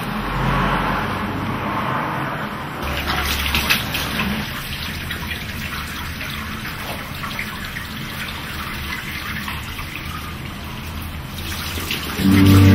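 A steady rush of running water, with a low hum beneath it. Loud music comes in just before the end.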